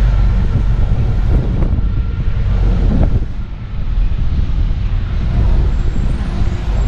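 Steady low rumble of an open-sided tour trolley in motion, its engine and road noise mixed with traffic, dipping briefly about halfway through.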